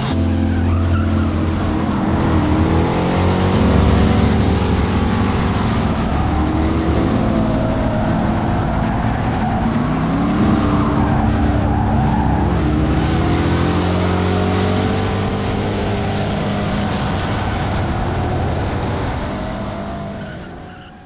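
Drift cars sliding with tyre squeal and skidding, their engines revving up and down. The sound fades out near the end.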